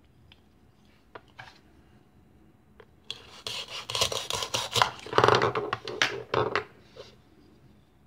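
Velcro hook-and-loop fastening tearing apart as a plastic toy knife cuts a toy onion in two: a scratchy rip in several pulls lasting about three and a half seconds, after a few light plastic clicks of the pieces being handled.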